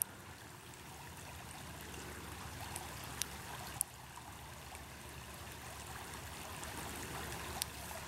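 A creek's water flowing and trickling steadily, fairly quiet, with a few faint clicks scattered through.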